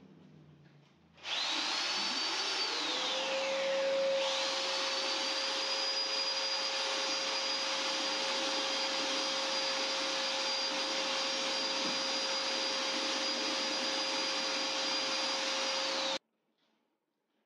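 Electric paddle mixer churning a batch of self-levelling floor compound in a bucket. The motor winds up about a second in, runs at a steady whine for some fifteen seconds, and cuts off abruptly.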